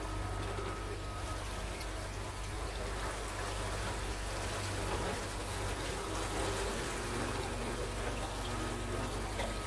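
Steady rush of water and wind around a moving river boat, over the constant low hum of its motor.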